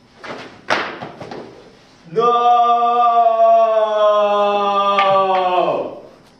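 A plastic bat strikes once with a sharp smack amid a brief scuffle. Then a voice holds one long loud note for about four seconds, its pitch sinking slightly before it stops.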